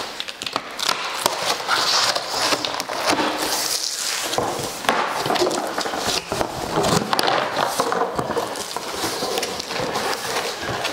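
A large cardboard box and its packaging being handled and opened: continuous scraping and rustling of cardboard with many short clicks and knocks.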